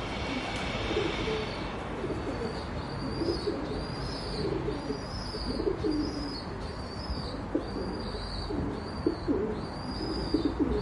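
Birds calling: low, irregular cooing, with a short high chirp repeated steadily about every 0.7 seconds from about two seconds in.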